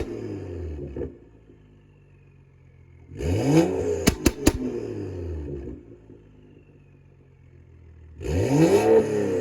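Straight-piped BMW M235i's turbocharged N55 inline-six revved in short blips. It settles to a quiet idle between them, and the second rev ends in three sharp exhaust pops on the overrun. Another rev starts near the end.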